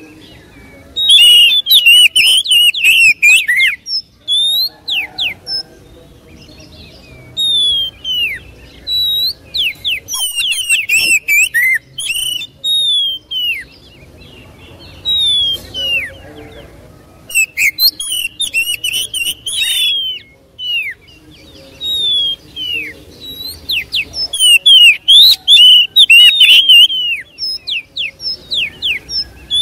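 Oriental magpie-robin singing hard, pouring out a rapid run of whistled, sliding and chattering phrases, including phrases learned from other birds, in bursts of a few seconds with short pauses between. It is loudest about a second in and again near the end.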